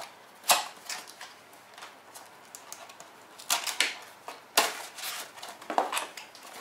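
Small cardboard boxes being opened and handled: flaps scraping and rustling, with a few sharp clacks as boxes and parts knock together and short pauses between.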